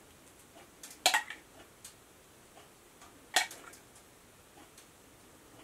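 Metal spoon clinking against glass while scooping thick sauce from a glass measuring cup: two sharp clinks, one about a second in and one a little past three seconds, with a few faint ticks between.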